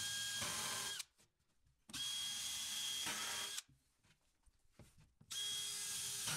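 Power drill spinning a countersink bit in three short runs of about a second to a second and a half each, with silent gaps between, boring countersunk screw holes in a kitchen cabinet panel so the screw caps will sit flush.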